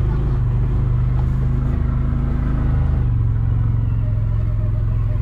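Side-by-side utility vehicle's engine running steadily as it drives across a pasture, its note dropping slightly about three seconds in.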